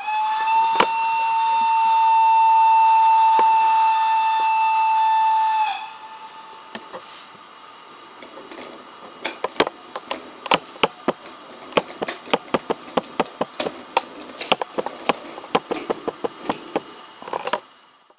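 A steady high whistle sounds for about six seconds on one held pitch and dips briefly just before it stops. Later, a wooden toy train clicks over the joints of its wooden track, several sharp clicks a second, until it stops.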